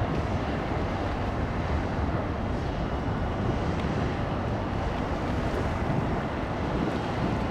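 Steady low rumble of harbour tugboats' diesel engines working against a tanker's hull, mixed with wind buffeting the microphone and water.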